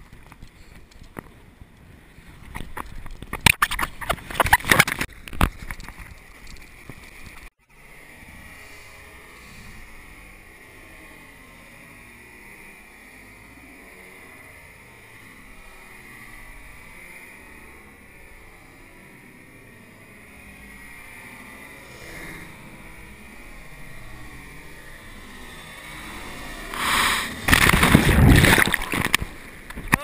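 Waves and surf wash splashing right at the microphone, with loud, ragged bursts about three to five seconds in and again near the end. In between is a steadier, duller wash.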